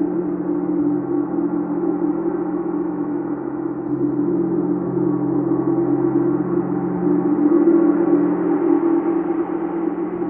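Chau gong sounding in a sustained wash of many overlapping tones, with no separate strikes standing out, swelling a little about two-thirds of the way through.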